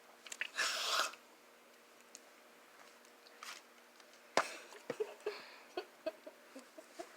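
Mouth sounds from drinking: a short slurp about half a second in, then a sharp sip followed by a quick run of small gulping clicks.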